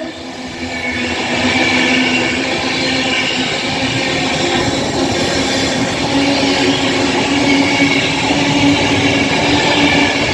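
A train running past close by: steady rumbling rail noise with a constant hum, building up over the first two seconds and then holding.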